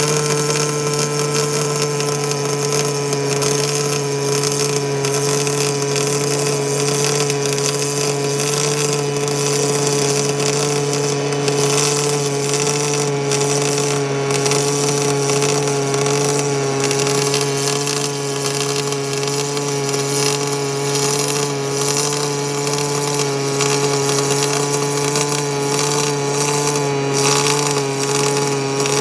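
Pulsed MIG/MAG welding arc from an EWM inverter welder set to about 200 amps in spray transfer, running steel wire: a steady, even buzz at the pulse rate over a continuous hiss of the arc.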